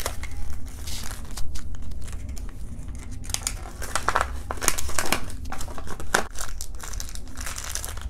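Crinkling and rustling of a Num Noms blind-bag wrapper and its folded paper checklist being handled, in irregular crackly bursts.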